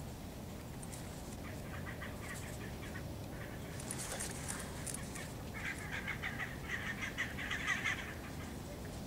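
Wild birds calling over a steady low background rumble: a few short, high calls in the middle, then a rapid chattering run of calls lasting a couple of seconds, the loudest part, that stops near the end.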